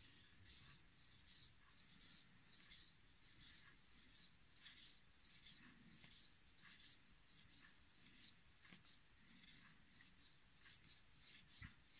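Knife blade being stroked back and forth on a wet 2000-grit Chinese natural whetstone covered in slurry, a quiet, gritty scrape with each pass, about one and a half strokes a second, while sharpening one side to raise a burr.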